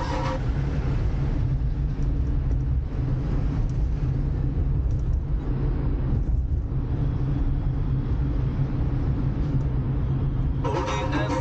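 Steady low rumble of a car driving in traffic: road and engine noise with no distinct events. Music comes back in near the end.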